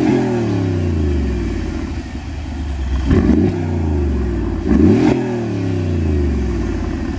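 Mercedes-Benz G63 AMG's 5.5-litre twin-turbo V8 with its catalytic converters removed, free-revved while parked. Three quick throttle blips come at the start, about three seconds in and about five seconds in. Each rises fast and falls back slowly to idle.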